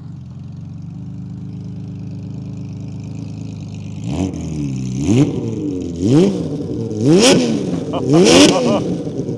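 Honda CBX1000Z inline-six engine with six-into-six exhaust, warm, idling steadily, then blipped up and down five times about a second apart, each rev louder and rising and falling quickly in pitch.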